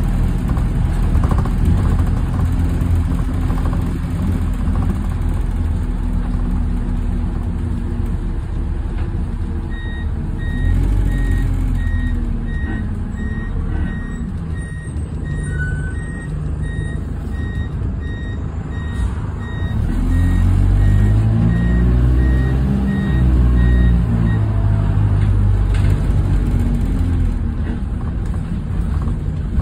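Bus cabin on the move: the diesel engine of a single-deck bus runs under load, its note rising twice as it pulls away and picks up speed. A high beeping, evenly repeated, runs through the middle stretch as the bus turns.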